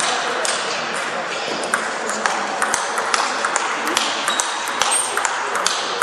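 Celluloid table tennis balls being struck by bats and bouncing on the tables in quick, irregular clicks during rallies, with the hall's steady background noise behind them.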